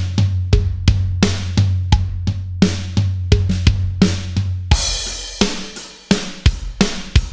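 Electronic drum kit playing a steady rock eighth-note beat at about 86 beats per minute. About two-thirds of the way through, a crash cymbal hit marks a change of pattern, and the groove continues under the cymbal wash with hi-hat, bass drum and snare.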